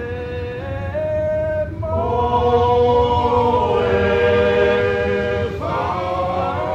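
Choral singing as film score: voices holding long sustained notes. More voices join about two seconds in, and the chord changes near the end.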